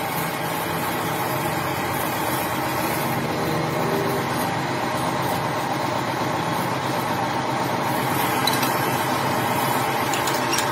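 Steady mechanical hum of machine-shop machinery running, with no pauses or changes.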